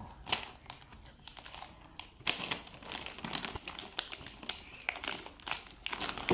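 Plastic snack packaging crinkling as small hands handle and pull at it to open it: a run of irregular crackles, the sharpest about two seconds in.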